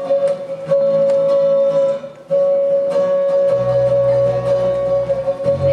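Instrumental introduction to a song: a long held high note, broken off briefly about two seconds in, over a light rhythmic accompaniment, with low bass notes coming in a little past halfway.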